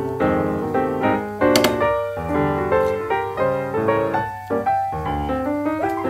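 Background piano music, a run of notes changing about every half second, with one short click-like hit about a second and a half in.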